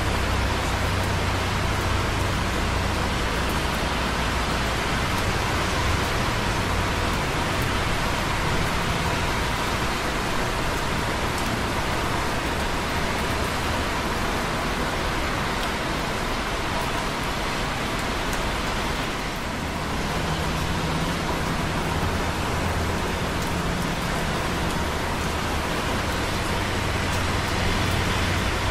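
Light rain dripping on concrete close by, over the steady hiss and low rumble of busy traffic on wet roads below. The traffic rumble eases in the middle and swells again a little after halfway.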